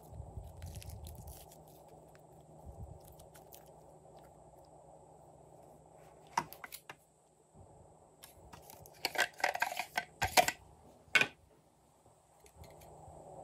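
Red glitter slime being squeezed and pressed down by hand, a soft squelch at the start. Later a few clicks, then a run of louder sharp clicks and crackly rustles as a plastic craft case is handled and opened to take out pompoms.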